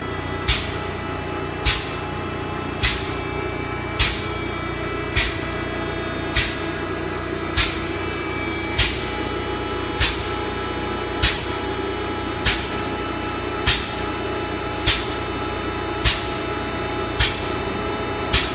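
A machine running with a steady hum, clicking sharply at an even pace, about once every 1.2 seconds.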